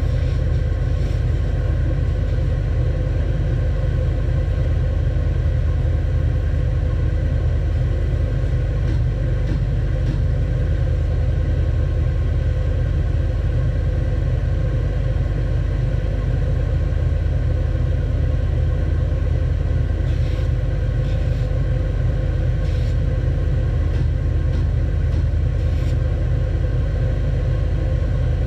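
Stationary belt sander running steadily with a low, even rumble, with a few faint brief scrapes as small wooden tiles are held against the moving belt.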